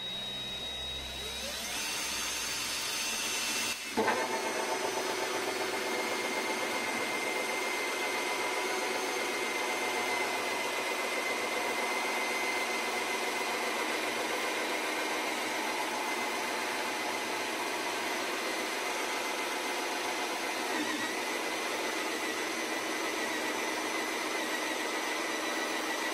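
Cordless drill with a hole saw cutting a hole through the wall of a plastic barrel. The motor runs at a steady whine under load, with the grating of the saw teeth in the plastic. There is a brief stop and restart about four seconds in.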